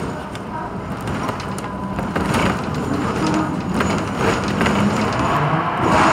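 Hong Kong double-decker electric tram running on its tracks, heard from on board: wheels rumbling on the rails with scattered clicks and rattles. It grows louder from about two seconds in as the tram picks up speed.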